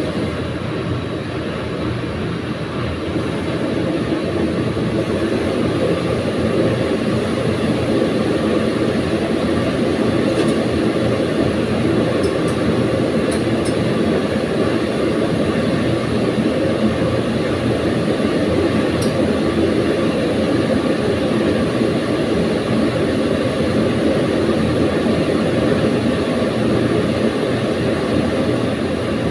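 Gas burners of a commercial wok range burning, a steady jet-like rushing noise that grows a little louder about four seconds in as more burners are lit.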